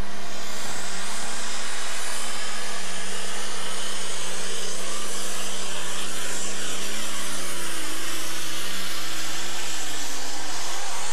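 Super stock pulling tractor's turbocharged diesel engine running flat out under load as it drags the weight sled down the track. The sound is loud and steady, with a pitch that wavers a little as the tractor pulls.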